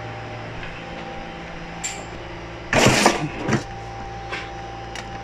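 A steady low mechanical hum, with a short loud rustling clatter about three seconds in and a couple of fainter knocks around it.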